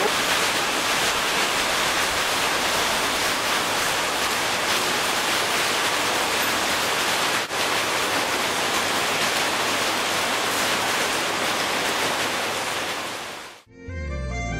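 A steady, even hiss spread across all pitches, with one brief dropout about halfway, fading out near the end. Music starts just before the end.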